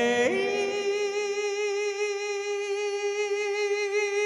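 A male singer holding one long high note on the last syllable of "Mexico", with a slight vibrato, for about four seconds, then letting it slide down near the end.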